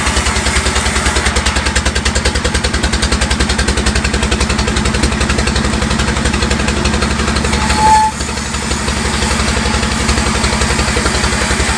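Sawmill's engine running with a steady, even pulse. About eight seconds in there is a brief high squeal, and the sound dips for a moment afterwards.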